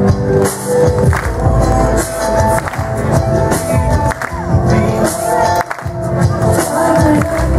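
Loud musical-theatre song with singing over a steady beat.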